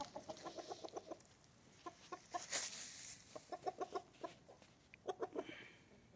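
Mottled Brahma chickens clucking in several quick runs of short notes. A brief burst of hiss-like noise comes about two and a half seconds in.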